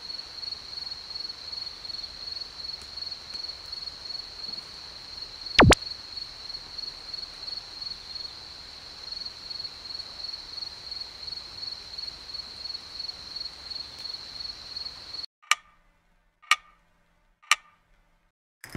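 Night ambience: an insect trilling steadily at a high pitch in rapid pulses, with one sharp pop from the wood fire about halfway. Near the end the ambience cuts off and three sharp clock-tick clicks come about a second apart.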